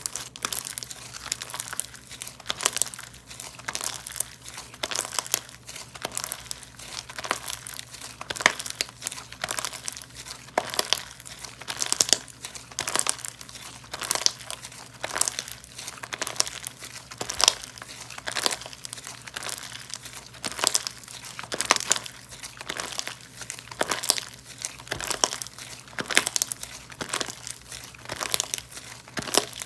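Slime being squeezed, poked and stretched by hand, giving repeated crackling, crinkly pops in quick clusters.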